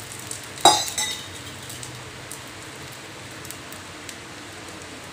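Beaten egg frying in hot oil in a small tempering ladle, a steady light sizzle with small crackles. A single sharp metal clink comes just under a second in.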